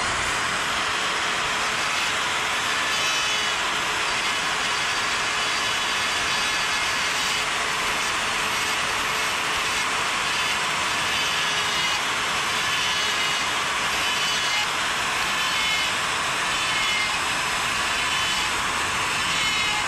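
Die grinder fitted with a coarse Saburrtooth flame burr running at a steady high speed, its burr grinding into wood to texture feathers on a carved owl's face. It makes a continuous whine with no let-up.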